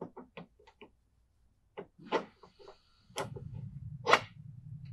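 Toothed lower sprocket of a Mud Buddy mud motor's lower unit being handled by hand at its shaft: a run of light clicks and knocks, a short metallic ring about two seconds in, and the loudest knock about four seconds in. A low steady hum starts about three seconds in.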